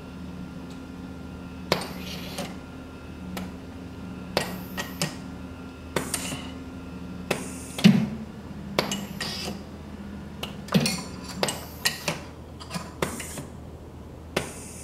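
Pneumatic cylinders and solenoid valves of a distribution station working in cycles: a series of sharp clicks and knocks, many followed by a short hiss of exhausting air, as a workpiece is pushed out of the magazine and moved. A steady low hum runs underneath.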